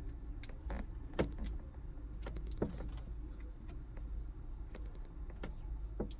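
Hands handling and taping together two RCA cables: scattered light clicks and knocks of the plugs and cables, the sharpest about a second in and near the end, over a steady low hum.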